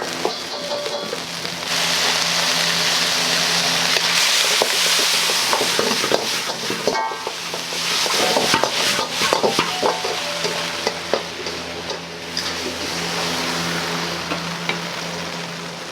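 Food sizzling hard in hot oil in a restaurant kitchen wok, with sharp metal clanks of a ladle or spatula against the pan as it is stirred. The sizzle swells and eases a few times, over a steady low hum.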